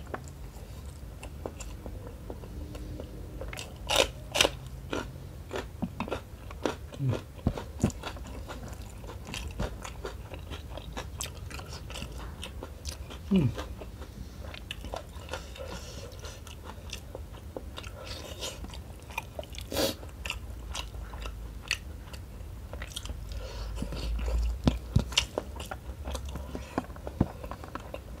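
Close-miked eating of rice and smoked tuna curry by hand: wet chewing and lip smacking, with scattered sharp clicks and a few louder snaps as fingers work the rice and sauce against the metal plate.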